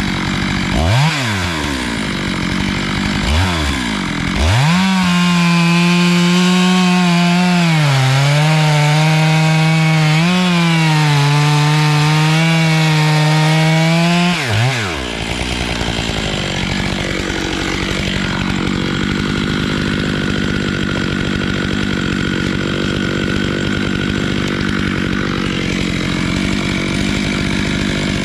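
Stihl MS 881 chainsaw on an Alaskan mill: blipped twice, then held at full throttle for about ten seconds, its pitch sagging and recovering twice as the chain takes load, before dropping back to idle.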